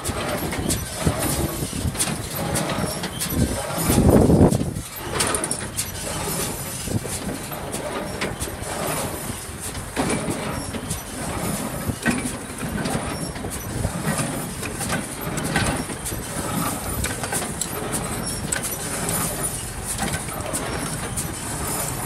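Steady outdoor noise with wind buffeting the microphone, including a strong low gust about four seconds in.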